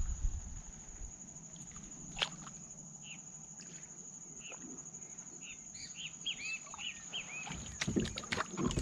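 A bird calls from the reeds in a run of short arched chirps in the middle, over a steady high-pitched whine. There is a sharp click about two seconds in, and a cluster of knocks and rustles near the end as the catfish is handled at the kayak.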